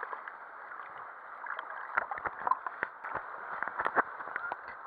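Water splashing and gurgling right at the camera as it moves through pool and slide water, with many small pops and crackles.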